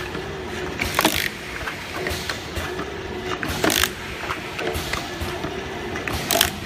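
Rotary e-liquid bottle filling and capping machine running: a steady mechanical hum with light clicking as the turntable indexes and the capping head works. Three short hisses come about a second in, near the middle and near the end.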